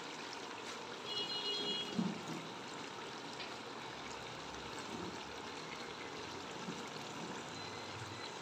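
Steady low hiss of mutton, masala and freshly added spinach cooking in a pressure-cooker pot on the stove, swelling slightly about a second in.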